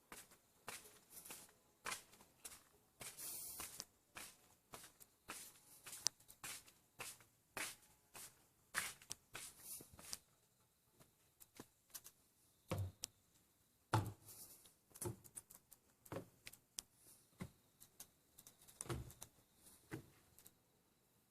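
Irregular rustling, scraping and light knocking, like objects being handled close by. It comes thick and fast for the first half, then thins to scattered knocks, a few of them duller and heavier.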